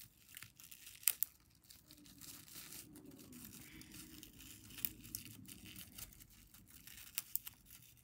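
Crinkly green sheet material being crumpled and twisted in the fingers: faint, irregular crinkling with scattered sharp crackles.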